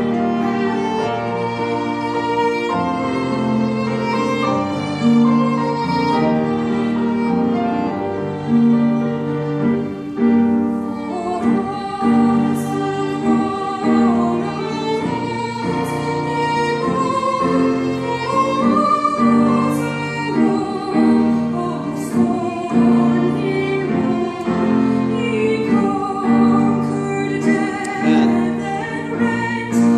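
Violin playing a slow, lyrical melody over acoustic guitar and piano accompaniment, in a hymn arrangement of an old Irish tune. Sharp guitar strums mark the beat every few seconds from about halfway through.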